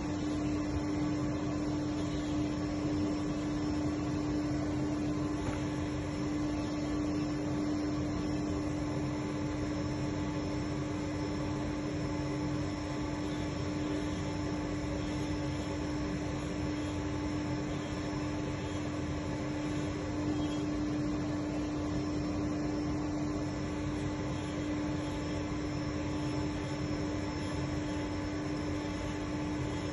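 A machine tool running with a steady hum and one constant mid-pitched tone, unchanging throughout.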